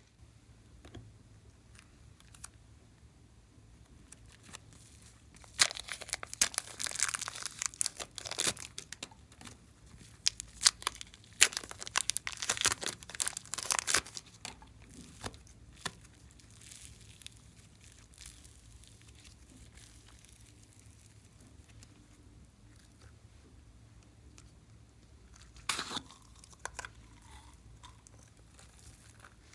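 Slime being pressed and stretched by hand, giving bursts of sticky crackling and popping: a long spell of dense crackles in the first half and one short burst near the end.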